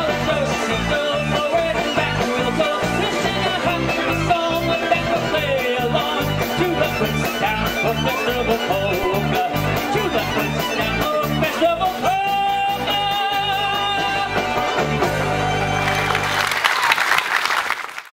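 A polka band plays the end of the song with a bouncing bass beat, then closes on a long held final chord. Audience applause follows near the end and cuts off suddenly.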